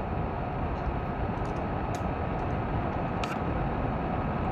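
Steady background hiss with a low rumble, and two faint taps of a stylus on a tablet screen, about two and three seconds in.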